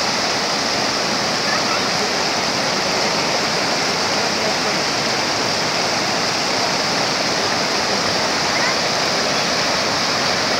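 Mountain stream rushing over rocks in shallow rapids: a steady, loud rush of white water.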